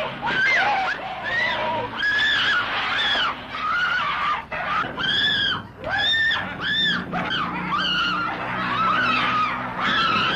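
A woman screaming over and over, a string of shrill, arching shrieks each lasting under a second, with a low hum underneath in the second half.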